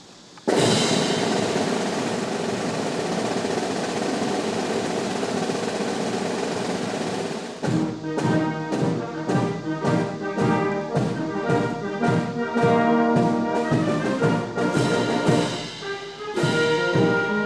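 Military band music: a sustained drum roll comes in suddenly, then about seven and a half seconds in a march with brass and drums begins, with a steady beat.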